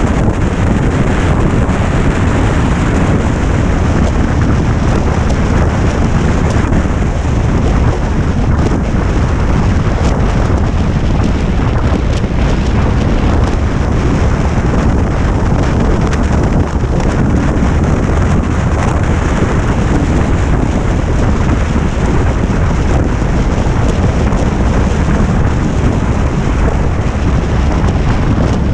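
Wind rushing across the microphone of an action camera on a motorcycle riding at road speed: a loud, steady, rumbling rush, with the motorcycle's running noise mixed in.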